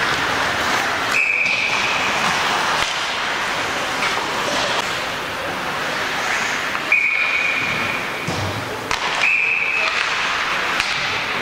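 Referee's whistle in an ice rink, blown in three short steady blasts: about a second in, then twice more close together in the second half. The blasts sound over a continuous haze of arena crowd and rink noise.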